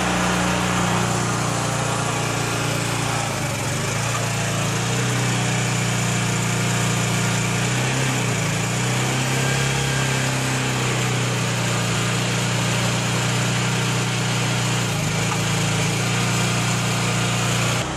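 Engine-driven hydraulic power pack running steadily under load, driving a Ditch Witch PB30 pipe burster as it pulls new pipe through the old concrete sewer line. The drone sags briefly in pitch a few times, about three and a half, eight and fifteen seconds in, as the pull bears down.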